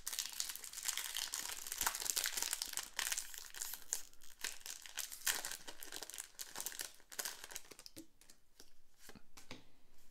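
A foil Pokémon card booster pack being torn open and crinkled as the cards are pulled out of it, a dense crackling for about seven and a half seconds. After that come a few lighter clicks and rustles as the stack of cards is handled.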